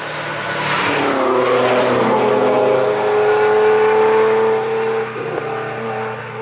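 A car engine, its note falling for about a second as the revs drop, then holding steady before fading near the end.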